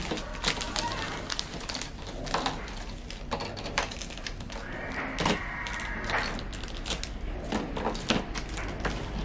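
Thin plastic parts bags crinkling and scissors snipping, with sharp clicks of plastic toy fence pieces being fitted together. A brief high tone sounds about five seconds in.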